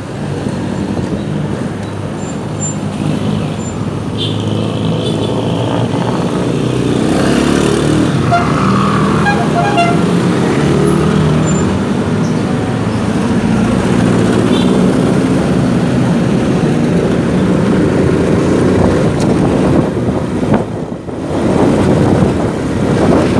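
Motorcycle engine running under way through street traffic, its note rising and falling as it rides. Other vehicles give short horn toots a few times.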